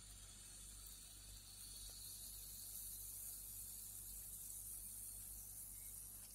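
Faint steady fizzing and crackling of carbonation bubbles from a baking soda and citric acid soda bomb dissolving in a cup of water.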